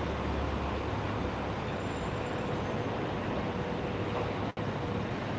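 Steady city street traffic noise, a low even hum of passing and idling vehicles, with a faint steady tone in it; the sound drops out for an instant about four and a half seconds in.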